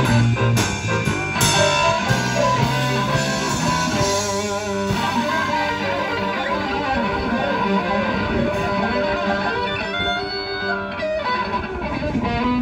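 Live rock 'n' roll band playing an instrumental break, with electric guitar to the fore over drums and keyboard.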